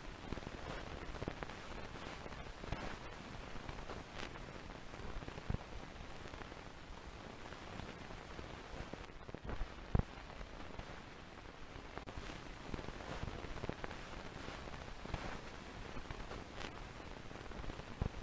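Steady hissing, crackling noise with scattered pops, the sharpest about ten seconds in.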